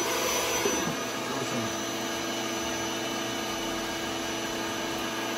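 Electric air-mattress pump fitted inside a 3D-printed model siren, running with a steady whirr after just coming up to speed. It is there to draw extra air through the siren so it sounds less weak.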